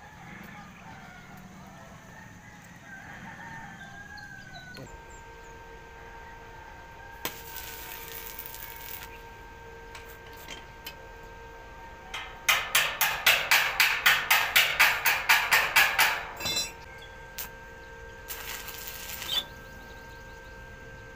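Power drill boring into a concrete slab in short runs, the loudest stretch pulsing about four times a second, as holes are made for expansion bolts. A wavering high-pitched call rises in the first few seconds.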